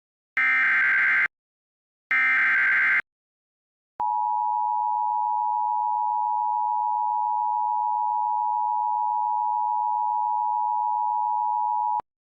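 Emergency Alert System SAME header: two short screeching digital data bursts, followed by the EAS two-tone attention signal (853 and 960 Hz together), held steady for about eight seconds before it cuts off abruptly.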